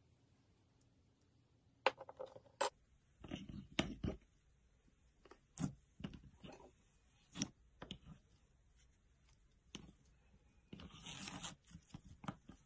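Slime being worked by hand: a string of short sticky crackles and clicks, with a longer crackling stretch near the end.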